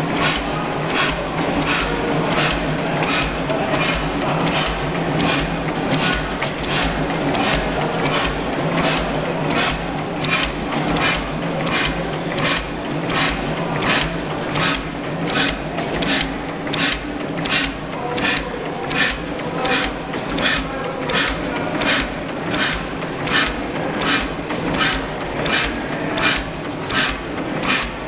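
A 38 hp Otto horizontal stationary engine running steadily, with an even mechanical clicking about twice a second over a low hum.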